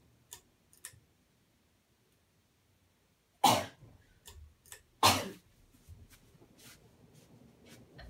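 A person sneezes twice, loudly, about a second and a half apart, with a few faint ticks around the sneezes.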